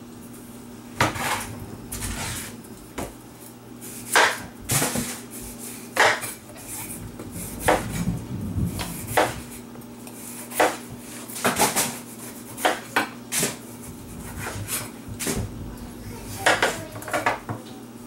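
Knife cutting a cantaloupe on a wooden cutting board: irregular sharp knocks and clicks of the blade meeting the board and the rind, about one every second or so, over a faint steady hum.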